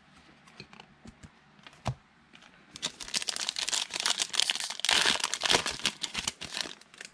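Trading card pack's foil wrapper being torn open and crinkled by hand, a dense crackling that starts about three seconds in and runs for about four seconds, after a few light taps of cards being handled.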